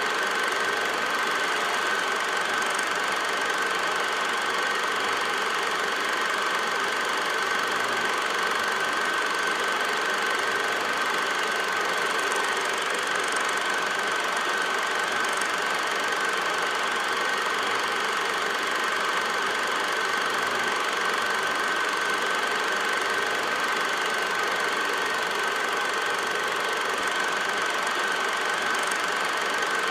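8mm film projector running: a steady mechanical whirr with a constant high whine, unchanging throughout.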